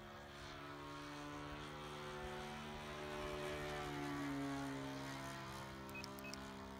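ASP 61 FS four-stroke model aircraft engine, converted to run on petrol, swinging a three-blade propeller as the plane flies past overhead. The engine note grows louder to about four seconds in, then drops in pitch and fades as the plane passes.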